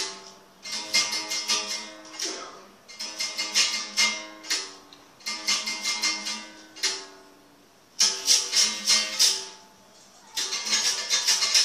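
Berimbau being played: a stick strikes the steel wire in quick rhythmic runs, grouped into short phrases about every two and a half seconds, with the pitch shifting between notes. The shaken caxixi basket rattle sounds along with the strikes.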